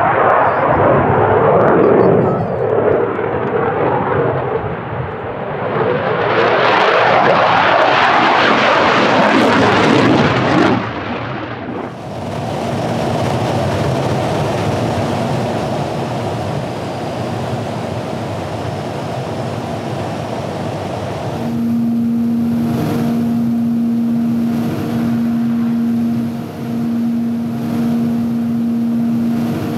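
A Saab JAS-39C Gripen's Volvo RM12 jet engine roaring past in afterburner, loudest around seven to ten seconds in. About twelve seconds in it gives way to the steady drone of a Shorts Skyvan's turboprops heard from aboard, with a low hum that swells and fades every couple of seconds.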